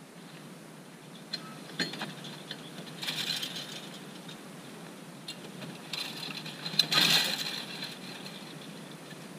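Metal clanking and rattling of a finger-wheel hay rake as it is swung around and reset from raking to tedding: a few sharp clicks, then two bursts of jangling metal rattle, the second one about seven seconds in the loudest.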